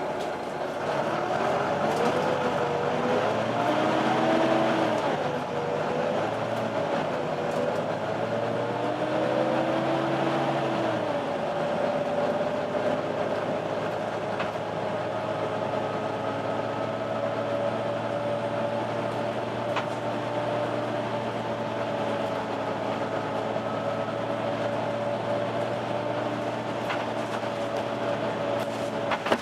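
Volvo B9TL double-decker bus running, with the whining 'hoover' of its engine cooling fan. The whine rises and falls in pitch for about the first ten seconds as the bus pulls away, then holds a steady tone.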